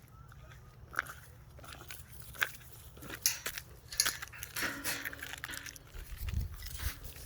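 Scattered crunches and sharp clicks, with a short low pitched sound a little past the middle.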